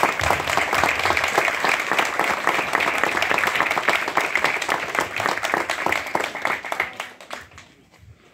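Crowd applauding with dense hand clapping that thins out and dies away about seven seconds in.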